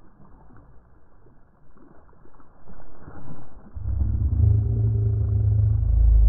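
A low, steady motor rumble starts about four seconds in and grows louder, with a steady hum running through it.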